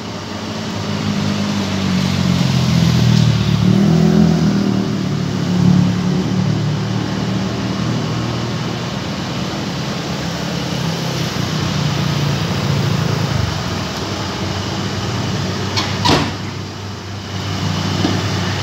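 Heavy diesel engine running steadily, louder for a few seconds near the start, with one sharp knock about sixteen seconds in.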